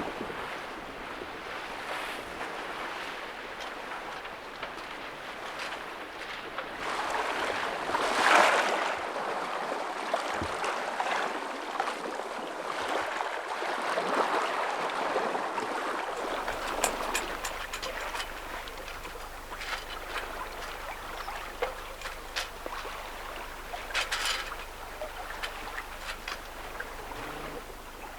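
Sailing boat under way: water rushing and splashing along the hull with wind, with one louder surge about eight seconds in. About halfway through the sound changes to a quieter wash over a faint low hum, with scattered ticks.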